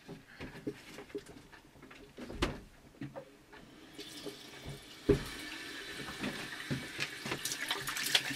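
A few light knocks, then about four seconds in a bathroom sink's warm-water tap is turned on and water runs steadily into the basin, with a sharp knock about a second later and splashing near the end.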